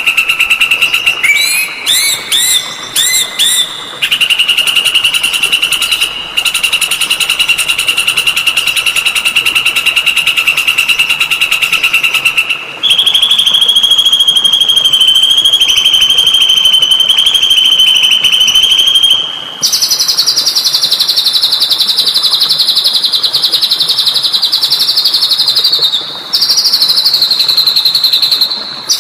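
Recorded songbird song: long, very fast trills held at one high pitch, with a few short rising-and-falling whistled notes near the start. The trill steps up in pitch a little before halfway through and again about two-thirds of the way through.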